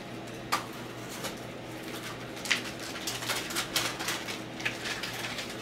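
Scattered light clicks and taps of trading cards and small plastic card holders being handled on a tabletop, over a steady low hum.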